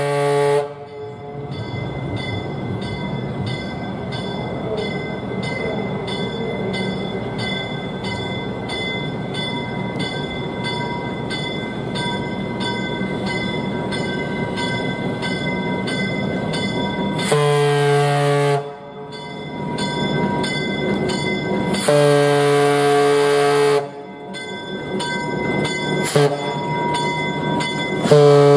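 EMD F7A diesel locomotive approaching: its horn sounds briefly at the start, then the engine rumbles while a bell rings steadily about twice a second. From about 17 seconds in the horn blows two long blasts, one short and a final long one, the grade-crossing signal.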